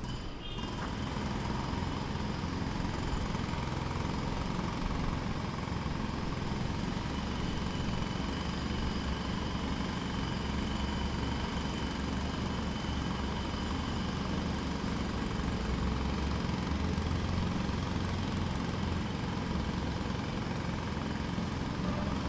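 Jackhammer heard from a distance, hammering continuously as a fast, steady rattle over a low rumble.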